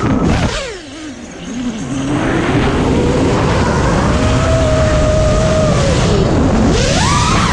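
FPV freestyle quadcopter's motors and propellers whining, the pitch following the throttle: it drops away about a second in, climbs back and holds, dips again near the end, then sweeps sharply up.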